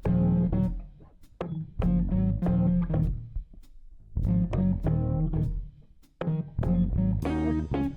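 Background music: plucked guitar notes over a bass guitar line, in short phrases with brief pauses between them.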